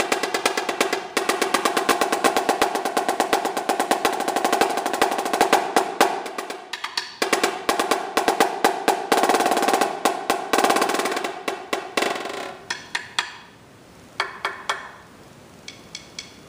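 Yamaha marching snare drum played rudimentally with fast, dense strokes and rolls, with a brief thinning about seven seconds in. About twelve seconds in the playing opens into spaced accented strokes, then a last short group of hits around fifteen seconds, and a few faint light clicks near the end.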